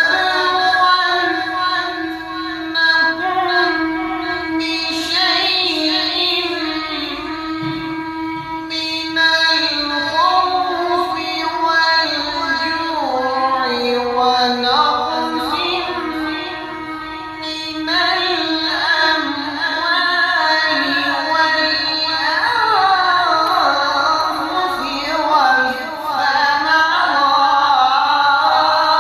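Melodic Quran recitation: a single high voice holding long, ornamented notes that glide up and down, with no clear words.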